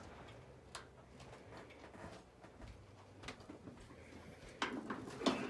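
Faint scattered clicks and taps of tools at the hood hinges, then about four and a half seconds in an impact gun starts rattling as it backs out a hood hinge bolt.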